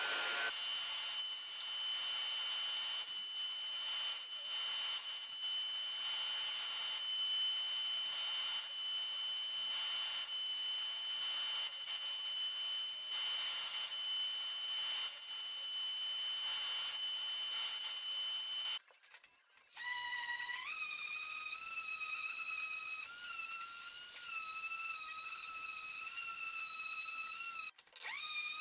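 Router in a router table running with a steady high whine as a wooden paddle shaft is fed past the bit to shape its edges. After a short break about two-thirds through, a DeWalt random orbital sander spins up with a lower, slightly wavering whine, cuts out just before the end and spins up again.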